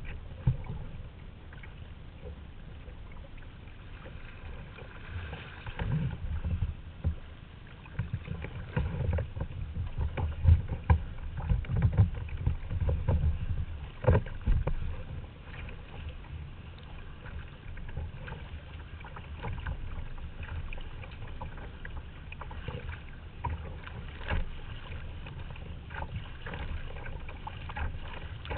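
Sea kayak paddling: paddle blades dipping and splashing in the water, with irregular splashes and knocks over a steady low rumble. The splashing is busiest and loudest in the middle.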